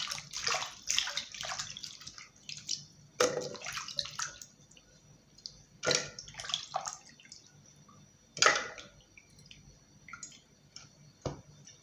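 Water splashing and dripping as freshly rinsed ingredients are handled, in irregular bursts with quiet gaps between.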